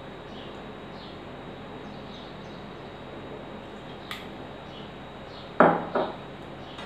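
Steel ladle knocking twice against a steel kadai near the end, with brief ringing, after a single small click about four seconds in, over a steady low hiss.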